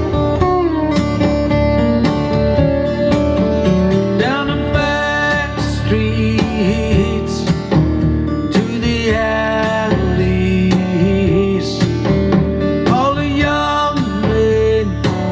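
Recorded country-style song in an instrumental guitar passage, with guitar lines bending in pitch over a steady backing, played back through a hi-fi amplifier.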